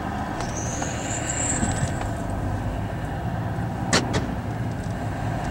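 Car driving, heard from inside the cabin: a steady low rumble of engine and tyres. A thin high whine rises in pitch from about half a second in to two seconds in, and a single sharp click sounds about four seconds in.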